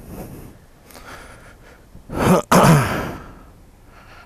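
A person's loud sigh close to a helmet-mounted microphone, in two breaths a little over two seconds in, the voice falling in pitch.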